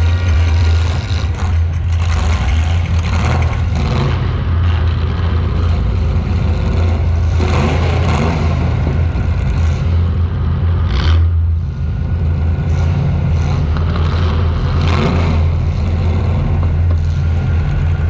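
Demolition derby car's engine running loud and steady, picked up close by a camera mounted on the car, with a few brief sharp noises over it, the sharpest about eleven seconds in.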